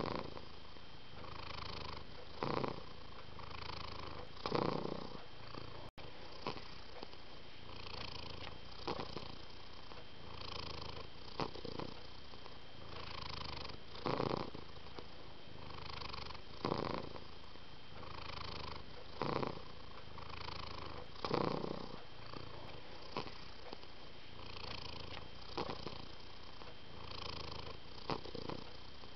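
Domestic cat purring steadily. The purr swells into a louder surge about every two and a half seconds.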